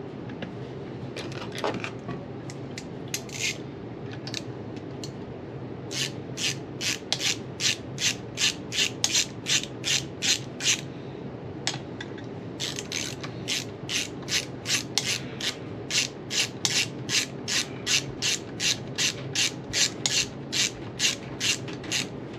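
Hand ratchet wrench run back and forth to drive in a gearbox bolt: rapid, even pawl clicks at about three a second, with a short pause in the middle.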